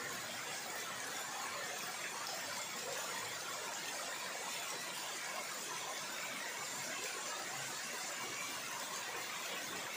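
Heavy, pouring rain falling on the leaves of trees: a steady, even hiss.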